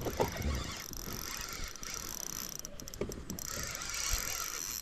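Spinning fishing reel being cranked to retrieve line, a steady mechanical whir with a few light clicks about three seconds in.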